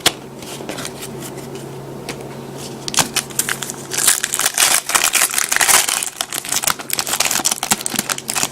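Trading-card foil pack being handled and torn open: scattered clicks about three seconds in, then a dense run of crinkling and crackling. A steady low hum sits underneath.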